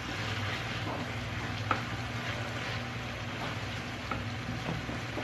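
Cooked taro greens being stirred in a pan, sizzling steadily, with a few sharp clicks of the stirring utensil against the pan.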